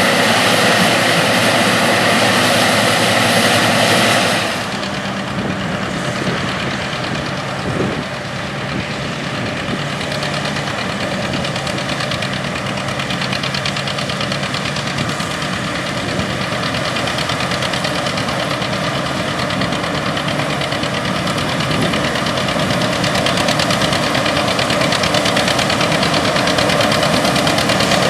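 Classic combine harvester engines running at work in a corn field, a steady mechanical drone. About four seconds in the sound changes abruptly to another machine's engine, quieter at first and slowly growing louder.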